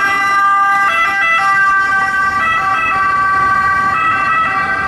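Ambulance siren: a steady electronic tone that switches between pitches every second or so.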